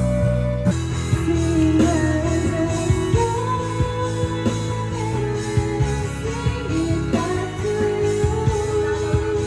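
Background pop-rock music with a steady beat, guitar and a sung melody.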